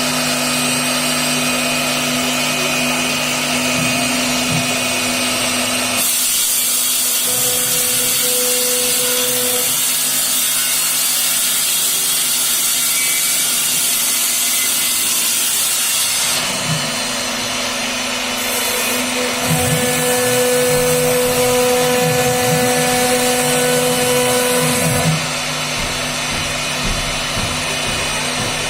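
CNC router spindle running steadily while its bit cuts an MDF sheet, with a brighter hissing cut sound from about six to sixteen seconds in.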